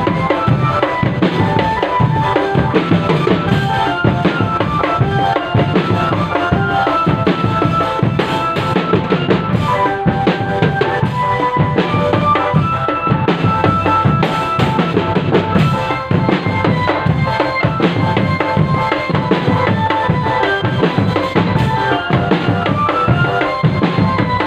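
An Indonesian drum band playing a steady beat on bass and snare drums, with a melody of short held notes over the drumming.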